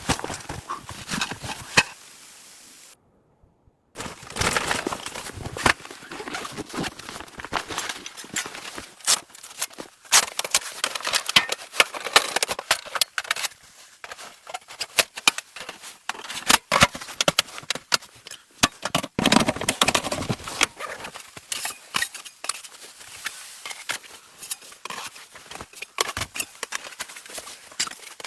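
Irregular crunching, rustling and clicking of close-up handling and movement, with a brief dropout about three seconds in.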